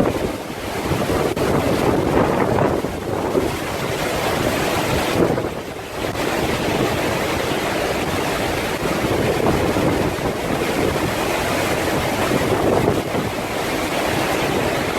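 Hurricane wind blowing hard across the microphone: a dense, loud rushing noise that eases briefly about five seconds in, then picks up again.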